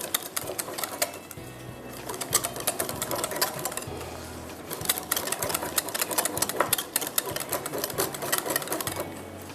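Wire balloon whisk beating a thick cream-cheese and butterscotch mixture in a glass bowl, its tines clicking rapidly against the glass.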